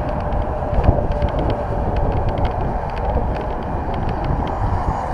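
Wind buffeting the microphone of a camera on a moving bicycle, with a steady low rumble and scattered light clicks and rattles from the ride.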